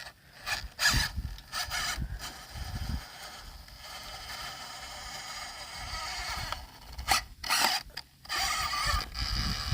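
Axial SCX24 micro RC crawler climbing rock: its small electric motor and gears whine in short bursts with scraping from the tyres and chassis, settling into a steadier whine for a few seconds in the middle and again near the end.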